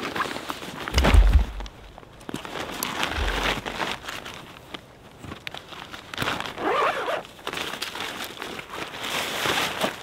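Rustling and crinkling of tent gear being unpacked and handled, with footsteps and small clicks, and two dull low thumps about one and three seconds in.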